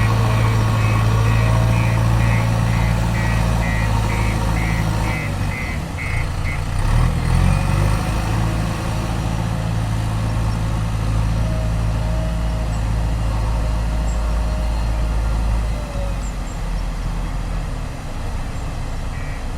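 JCB 3DX backhoe loader's diesel engine running under work, revving up about seven seconds in. A rapid, even, high-pitched beeping sounds for the first six seconds or so.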